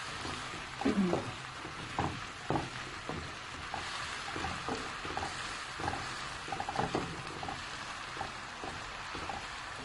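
Chopped onion and carrots frying in cooking oil in a pan, a steady sizzle, with the spoon scraping and tapping against the pan again and again as they are stirred.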